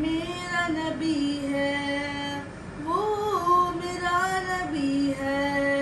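A boy singing an Urdu naat unaccompanied, in long held notes with ornamented turns; the melody climbs to a higher phrase about three seconds in and then settles back down.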